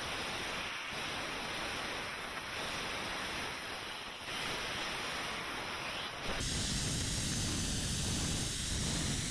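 Steady hissing rush of a model rocket's long-burning H13ST-P end-burner solid motor under low thrust. About six seconds in the noise turns abruptly fuller and deeper.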